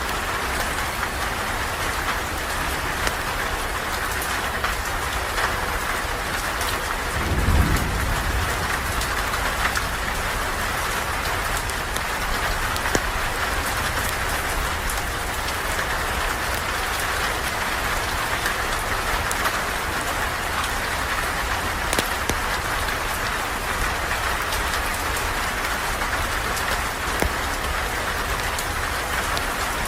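Steady heavy rain falling on a surface, with scattered sharp small clicks. About seven and a half seconds in, a short, deep rumble of thunder.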